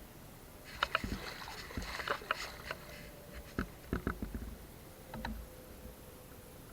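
Water splashing with scattered knocks and clicks, a busier stretch about a second in, then quieter near the end.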